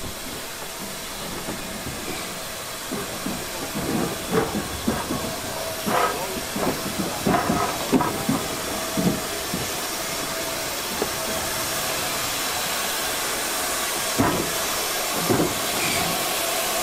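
Southern Railway S15 4-6-0 steam locomotive hissing steam, the hiss growing louder toward the end, with irregular clanks and knocks in the middle and two more near the end.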